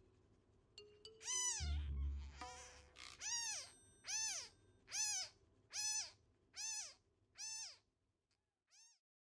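A newborn kitten crying in a run of high mews, about seven of them, each rising then falling in pitch, under a second apart. A brief low thump of handling comes near the second mew.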